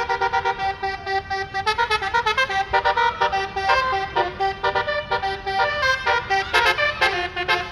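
A bus's basuri "telolet" multi-tone musical horn playing a fast tune of short notes that jump quickly from pitch to pitch.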